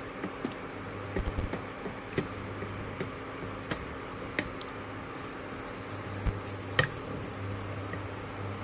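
Wooden slotted spatula stirring a thin curry in a stainless steel pot, with scattered light knocks and clinks against the pot over a steady low hum.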